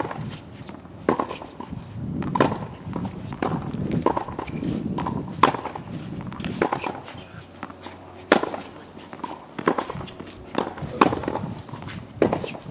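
Tennis ball struck with a racket again and again in a practice rally, a sharp pock about every three seconds. Fainter knocks from bounces and other hits fall in between.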